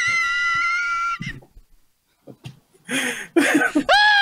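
High-pitched, squealing laughter from men cracking up at a joke. A long wheezy squeal breaks off about a second in; after a short pause come a few gasping laugh bursts, then another high squeal near the end.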